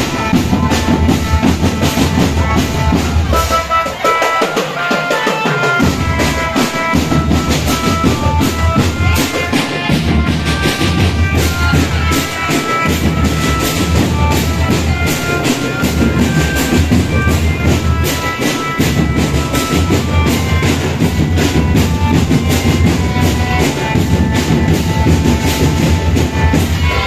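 Marching drum band playing: a steady stream of snare and bass drum beats, with a tune of short stepping notes carried over the drums.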